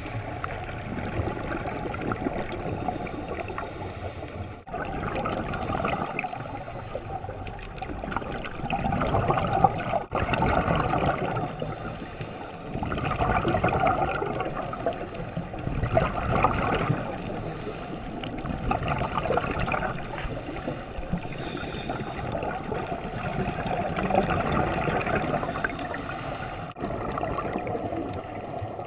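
Underwater scuba ambience: bubbles from a diver's regulator gurgling and rushing past the camera housing, swelling louder for a second or two every few seconds with each exhaled breath over a steady bubbling hiss.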